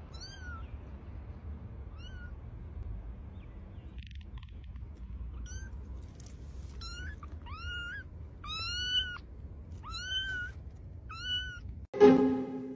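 Calico kitten meowing repeatedly: about eight short, high-pitched mews, bunched closer together and louder in the second half. Music starts suddenly near the end.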